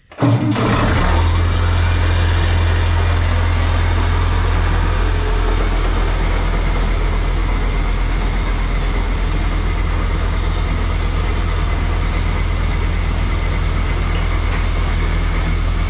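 International Harvester 3588 tractor's six-cylinder diesel engine running steadily at a low speed, its low tone shifting slightly about five seconds in.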